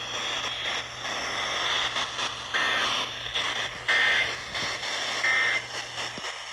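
Three short bursts of EAS end-of-message data tones, the two-pitch warble of the SAME code, about 1.3 seconds apart, over steady radio static and a low hum. The bursts mark the end of the alert broadcast.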